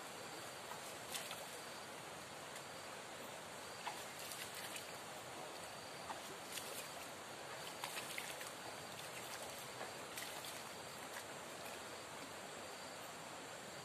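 Steady rush of a flowing river, with scattered faint clicks and ticks over it.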